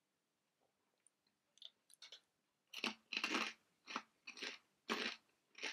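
Mouth-close crunching of puffed pork crackling being chewed, loud, sharp crunches about two a second starting about halfway in, after a few faint clicks.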